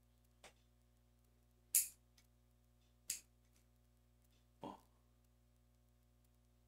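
Metal nail clipper snipping fingernails: three sharp snaps about a second and a quarter apart, the first faint and the last two loud. About two-thirds of the way through comes one shorter, duller knock.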